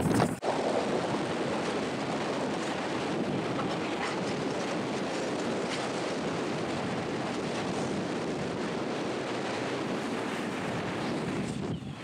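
Steady rushing wind noise on the microphone as the camera travels down a snowy slope in a whiteout.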